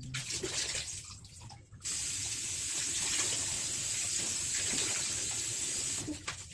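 Kitchen tap running into a sink while raw chicken is rinsed clean under it. A few short handling noises come first, then the water comes on about two seconds in, runs steadily and shuts off shortly before the end.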